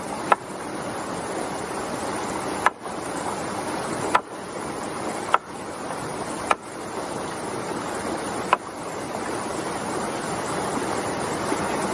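Large knife chopping raw meat on a wooden plank, six sharp chops spaced one to two seconds apart, over the steady rush of a shallow stream.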